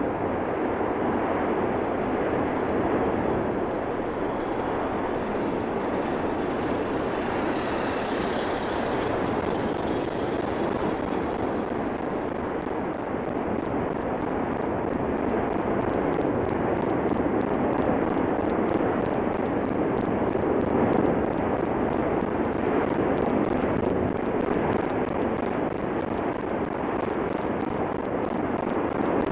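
Cumbre Vieja fissure eruption giving a steady, unbroken rushing noise, like a jet engine, with no separate blasts.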